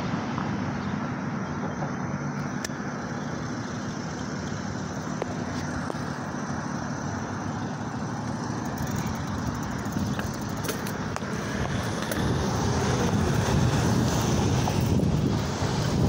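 Road traffic passing at an intersection: a steady rush of engine and tyre noise, growing louder from about twelve seconds in.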